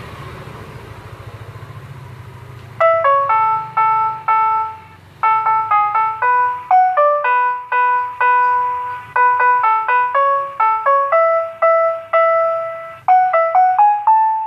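The Susu Murni Nasional milk vendor's cart jingle: a simple ice-cream-van-style tune played one note at a time. It starts about three seconds in, after a faint low hum.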